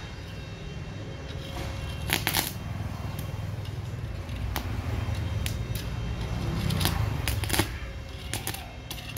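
Stick-welding electrode on a Goldy IGBT inverter welder crackling and sputtering in short, broken arc strikes against a steel block, with a run of sharp crackles about two seconds in and again between about five and eight and a half seconds, over a steady low hum. The welder is one said to weld weakly.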